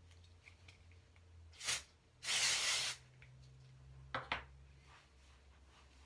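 Oribe Après Beach Wave and Shine Spray sprayed onto hair from a small bottle: one short spray, then a longer spray lasting nearly a second, followed by two brief sharp sounds about four seconds in.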